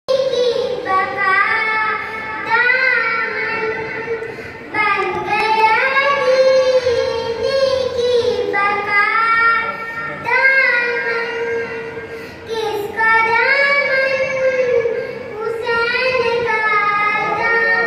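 A young boy chanting a devotional kalam solo in a high, melodic voice, in phrases of a few seconds with short breaths between them and no instruments.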